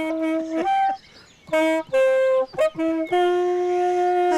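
A tune on a horn-like wind instrument: a run of short notes at changing pitches, then one long held note near the end.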